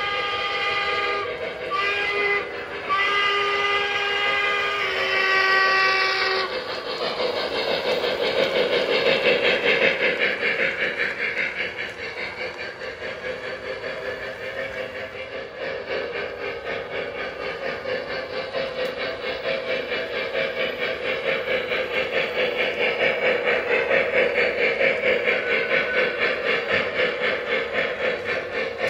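Sound system of a Lionel Legacy O gauge Central Pacific Jupiter 4-4-0: the steam whistle blows in a few blasts, the last and longest ending about six seconds in. Then comes fast, even steam chuffing with running noise from the model on the track, louder again near the end as the train passes.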